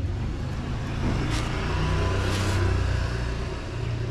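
Motor vehicle engine running with a steady low hum, swelling louder as it passes between about one and three seconds in.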